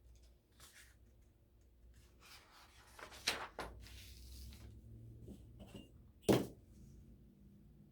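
Faint handling noises: soft rustles and a few short knocks, the two sharpest about three seconds in and about six seconds in.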